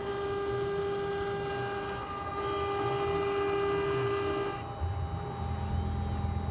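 CNC stone-engraving router running: a steady high whine from the spindle and motors, its tones shifting a few times as the machine changes its moves, over a lower hum.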